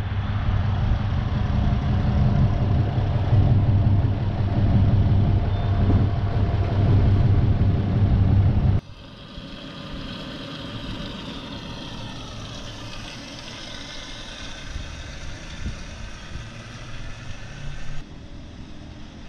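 A car engine idling with a steady low rumble. About nine seconds in it cuts off abruptly to a much quieter stretch with faint, wavering higher tones.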